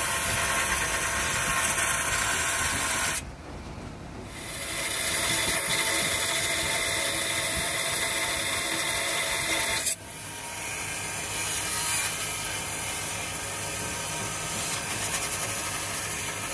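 Abrasive disc on a long-shafted power grinder grinding the cast iron of a tractor transmission housing: a steady, high grinding whine. It drops off briefly about three seconds in and again at about ten seconds, then picks back up.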